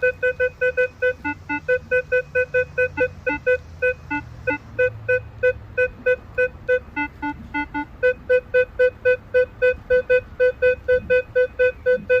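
Metal detector target tone: short mid-pitched beeps, about four a second, as the coil is swept back and forth over a target wedged in a crack. Now and then a beep drops to a lower tone, a sign of the target reading jumping about rather than holding steady.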